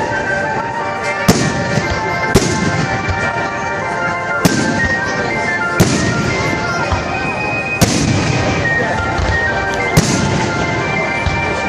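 Fireworks display: sharp shell bursts every second or two, about seven in all, over steady music.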